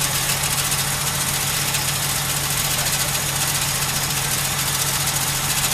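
Jeep Cherokee XJ's engine idling steadily, with no revving.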